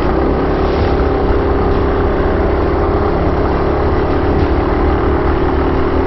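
Vintage Tote Gote mini bike's small single-cylinder engine running hard and steady as the bike is ridden, its note holding one pitch throughout.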